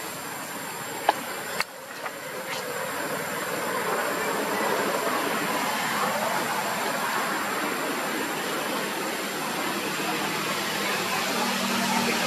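Steady rushing background noise that grows louder after about two seconds, with a low engine-like hum coming in near the end. A couple of sharp clicks sound about a second in.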